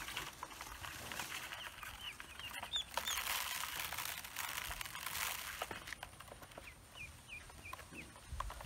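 Newly hatched ducklings peeping in short high chirps, in runs near the start and again near the end, with light clicks of beaks pecking in a plastic basin. A loud hissing rush lasts a couple of seconds in the middle.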